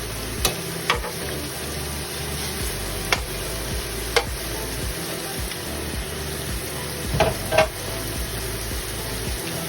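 Slices of beef liver sizzling as they fry in hot oil in a pan, a steady hiss broken by a few sharp clicks, several of them close together about seven seconds in.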